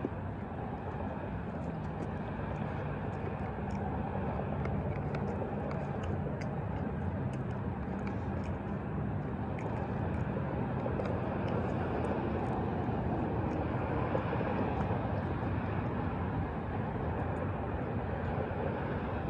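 Distant engine noise, a steady rumble with a low hum, swelling slowly to a peak about two-thirds of the way through and then easing a little. Faint scattered ticks sit over it.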